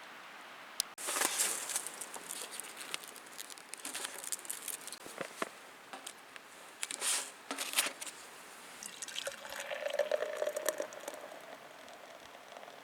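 Liquid being poured and splashing into a container, with a sharp click about a second in and a spell near the end where the vessel sounds like it is filling.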